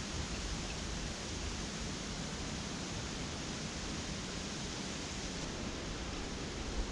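Steady wind on the microphone: an even rushing hiss with a fluctuating low rumble underneath.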